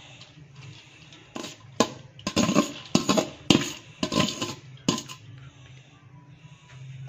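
A metal utensil clattering and scraping against a cooking pot as parboiled rice is spread in a layer over the biryani, a quick run of about nine sharp knocks between about one and five seconds in.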